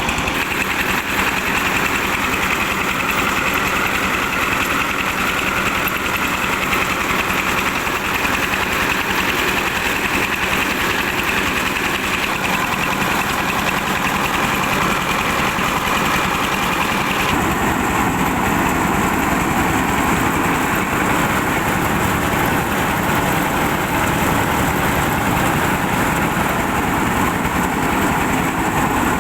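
Car engine running steadily, powering a home-built rice milling machine, with the mill's noise mixed in. The sound changes abruptly about seventeen seconds in.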